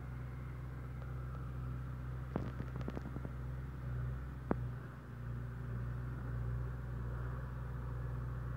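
Tractor engine running steadily with a low drone as it climbs along the ridge, with a quick cluster of clicks about two and a half seconds in and a single sharp click about four and a half seconds in.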